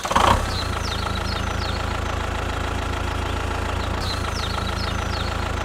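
Tractor engine idling steadily, a low, fast-pulsing diesel-style rumble. Faint bird chirps come through twice.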